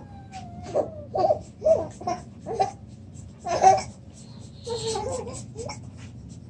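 Young child giggling in short, high bursts, about three a second, broken by hiccups; the loudest burst comes a little past halfway.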